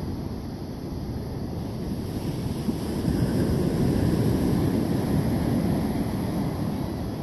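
Low rumble of wind buffeting the microphone, mixed with small sea waves washing ashore, swelling louder for a few seconds midway.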